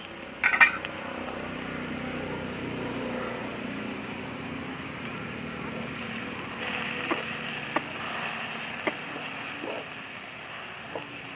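A loud metal clatter about half a second in. Then a steel ladle stirs drumstick leaves in a steel cooking pot over a wood fire, with a sharp metal clink against the pot every second or so, over a steady hiss.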